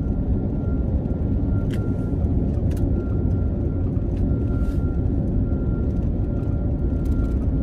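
Car driving at highway speed: a steady low rumble of tyre and engine noise, with a faint steady high tone over it.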